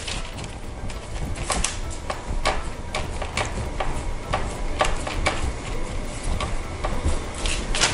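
Parchment paper crinkling and rustling under hands pressing and patting scone dough into a disc on a baking sheet, in irregular sharp crackles several times a second.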